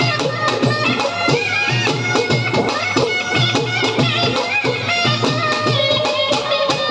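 Music: a wavering, ornamented high melody over a dense, steady beat.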